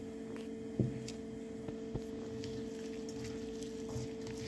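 A hand mixing chopped momo filling of cabbage, onion, paneer, coriander and oil in a steel bowl: faint soft squishing and rustling with a light knock about a second in, over a steady background hum.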